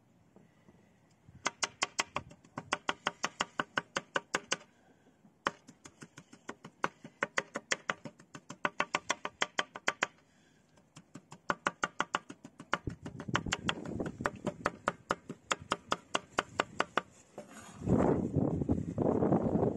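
A knife chopping food on a cutting board in quick, even strokes of about five a second, in runs with short pauses. Near the end a louder rustling noise comes in.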